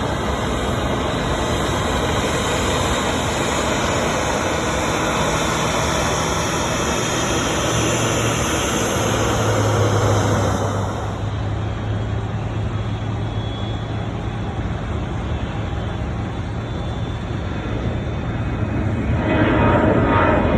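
Jet airliner engine noise, a continuous broad rush; a steady low hum comes in about nine seconds in, and the high hiss fades out about two seconds later.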